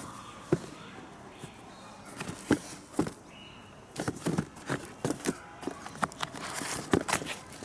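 Irregular clicks, taps and light knocks of handling close to the microphone, as the camera and sneakers are moved about.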